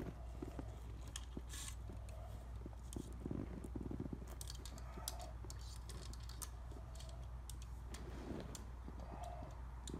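Small scattered clicks and rattles of an 18-inch Oregon saw chain being handled on a chainsaw bar, as a chain fitted backwards is taken off to be turned around, over a steady low hum.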